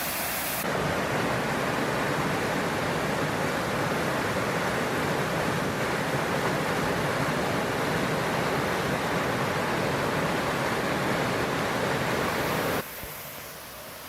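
Waterfall: a steady rush of falling water. It shifts abruptly just under a second in, then drops suddenly to a quieter rush near the end.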